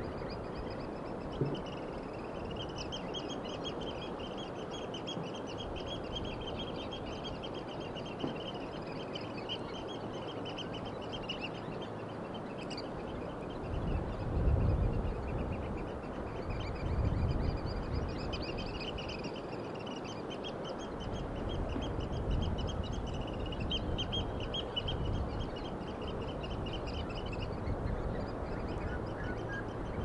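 Seaside birds calling in long runs of fast chattering notes over a steady hiss of background noise. A few low surges swell up around the middle.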